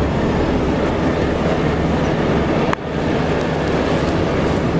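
Steady road and engine noise of a moving car, heard inside the cabin, with a brief dip nearly three seconds in.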